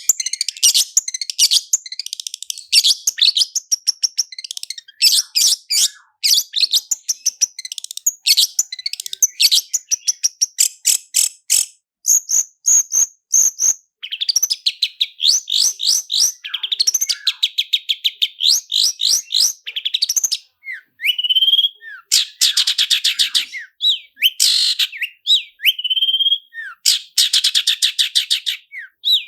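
Long-tailed shrike singing a fast, rapid-fire song: long rolling trills of sharp high notes repeated at speed, broken in the second half by short rising whistled notes.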